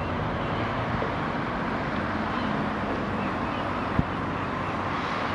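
Steady outdoor ambience of a harbourside town: wind on the microphone and a distant traffic hum, with a single short knock about four seconds in.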